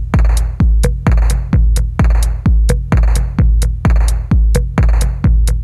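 Electronic background music with a heavy, steady drum-machine kick, about two beats a second, and hi-hat ticks between the beats.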